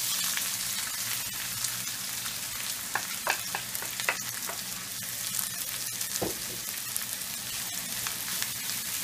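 Chopped onion and grated carrot sizzling in hot oil in a frying pan as they are sautéed, a steady hiss, with several clicks and scrapes of a plate and wooden spatula against the pan about three to four seconds in and a single knock about six seconds in.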